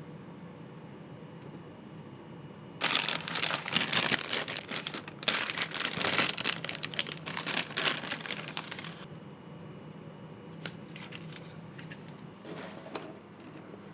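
Plastic packaging crinkling and rustling as it is handled for about six seconds, with a short pause partway, followed by a few light clicks and rustles.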